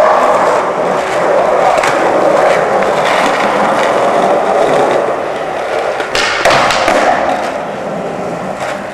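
Skateboard wheels rolling steadily on smooth concrete inside a parking garage, a continuous rumble, with a few sharp clacks about six seconds in.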